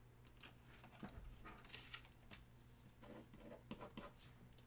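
Near silence: a low steady hum with a scatter of faint soft clicks and rustles.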